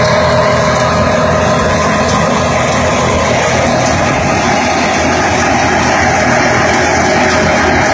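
Tractor-driven stationary grain thresher running steadily while straw is fed in. Its engine and drum make a loud, continuous drone with a steady whine.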